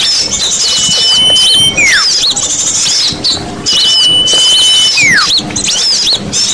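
Looped bird-lure recording of small birds calling: a long steady high whistle, then a falling whistle, repeating about every three seconds over a dense chatter of quick high chirps.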